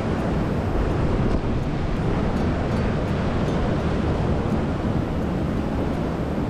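Steady rushing of a fast mountain river close by.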